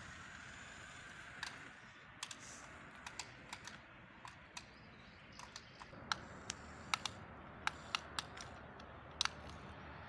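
Irregular sharp plastic clicks from a toy remote-control front loader being handled, coming faster and louder from about six seconds in.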